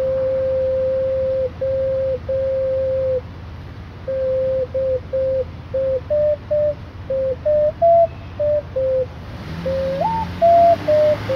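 A small wind instrument cupped in both hands and blown, playing a slow tune of pure, whistle-like notes: long held notes at first, then a run of short notes stepping up and down, with a quick jump to a higher note near the end.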